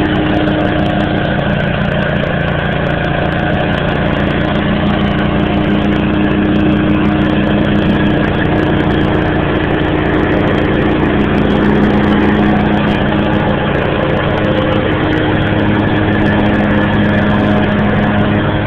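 Cub Cadet riding lawn tractor's engine running steadily at an even speed.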